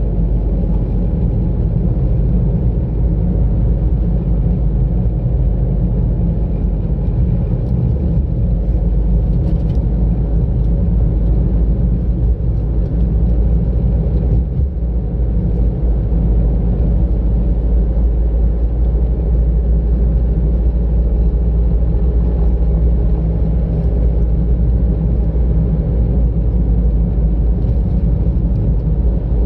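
Steady road noise of a car driving: low engine and tyre rumble as heard from inside the moving car.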